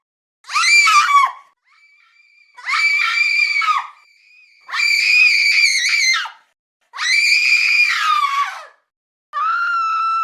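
A string of high-pitched human screams, one after another: five in all, the first short and the rest each held for a second or two with brief gaps between, most dropping in pitch as they end.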